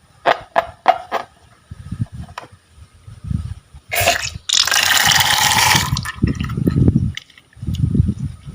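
Slime being squeezed and worked by hand, with sticky clicks and squelches, and a loud hiss lasting about a second and a half midway.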